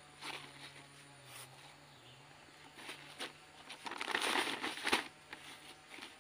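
Hands scooping dry potting mix with rice husk into black plastic polybags and pressing it down: scattered rustling and crunching of the husk mix with crinkling plastic, loudest about four to five seconds in.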